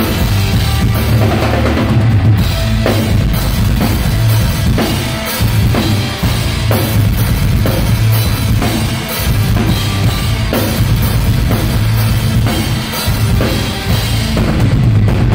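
Heavy rock band playing loudly, the drum kit to the fore with kick drum, snare and cymbals over a steady low bass.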